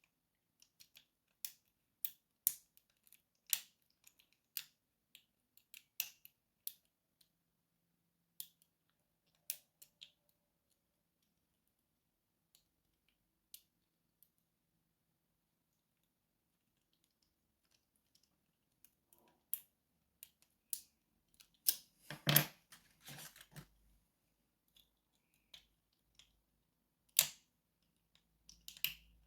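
Lock picking in a pin-tumbler lock: small, scattered metallic clicks of the pick and tension wrench working the pins, with a denser rattling run of louder clicks about three-quarters of the way through.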